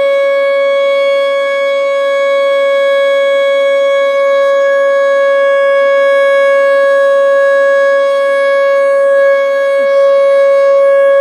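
American Signal T-121 outdoor warning siren sounding the steady three-minute alert signal: one loud tone held at a constant pitch, swelling slightly in loudness now and then.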